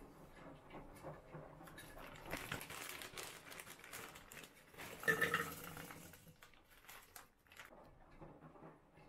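Plastic bag of frozen cherries crinkling as it is handled, then the frozen cherries tipped into a plastic blender beaker with a short, louder clatter about five seconds in, followed by a few small knocks.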